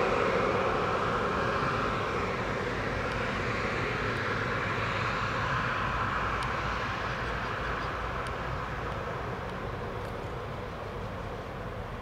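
Embraer 195's twin General Electric CF34-10E turbofans at low taxi power, a steady jet whine and rumble that fades slowly as the airliner rolls away along the runway.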